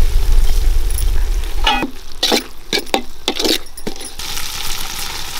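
Metal ladle stirring and scraping a thick masala in a large metal kadai over a wood fire, with a few sharp scrapes and clicks in the middle, then a steady sizzle from about four seconds in. A low rumble fills the first two seconds.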